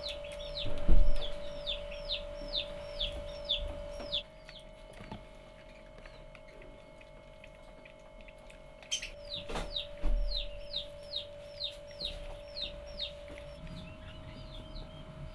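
Baby hedgehogs peeping: a series of short, high-pitched chirps that fall in pitch, about three a second, in two bouts with fainter ones near the end. A steady hum runs underneath, and dull thumps come about a second in and about two-thirds through, the first being the loudest sound.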